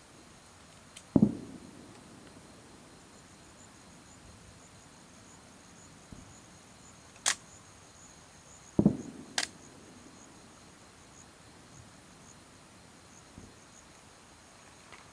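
Aerial firework shells bursting: two deep booms with a rumbling tail, about a second in and about nine seconds in, and two short sharp cracks between them. A faint steady insect chirring sits underneath.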